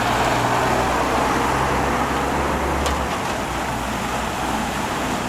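A motor vehicle engine running steadily, with a constant low hum under a broad rushing noise.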